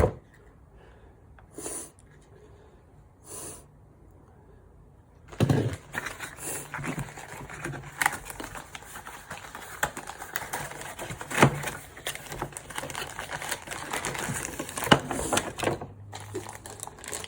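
Packaging being handled: a quiet stretch broken by two faint short puffs, then from about five seconds in a busy, irregular run of small clicks, taps and rustles.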